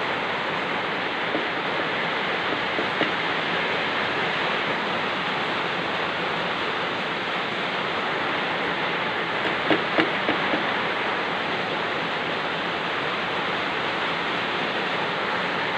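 Steady hiss of heavy rain, with a few faint knocks about ten seconds in.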